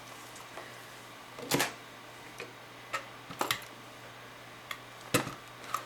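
A film camera being handled, giving several short sharp mechanical clicks and knocks, the three loudest about two seconds apart.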